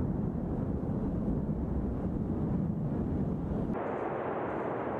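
A low, steady rumble that cuts abruptly, about four seconds in, to the steady roar of the Cumbre Vieja volcano erupting, with lava fountaining from its vent.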